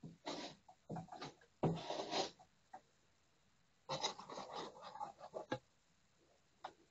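Putty knife scraping filler over a plaster patch in short, irregular strokes, with a pause of about a second and a half in the middle.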